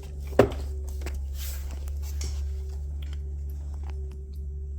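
A single sharp knock about half a second in, then soft rustling handling noises over a steady low hum.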